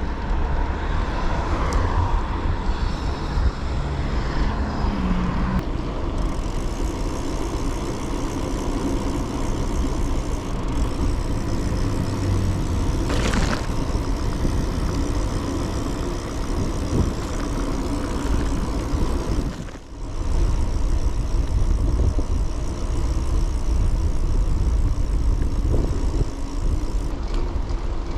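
Wind rushing over the microphone of a bicycle in motion along a road, with motor traffic passing. The rush drops off briefly about two-thirds of the way through.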